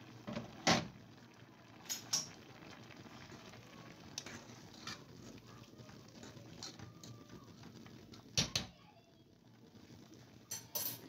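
A spoon stirring a boiling pot, knocking against the metal pan in a handful of sharp clinks, the loudest about a second in and a pair near the end, over a low steady bubbling.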